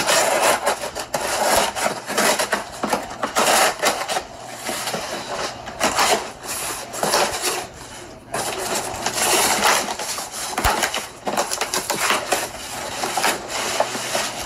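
Scissors cutting through packing tape on a cardboard shipping box, then tape and cardboard flaps scraping and rustling as the box is pulled open, in irregular scratchy strokes.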